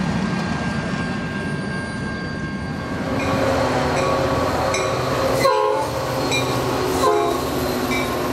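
A steady low hum for about three seconds gives way to passing trains: a double-stack freight train and a Metra bilevel commuter train rolling by on adjacent tracks, with rail and wheel noise. A short train horn note sounds about five and a half seconds in.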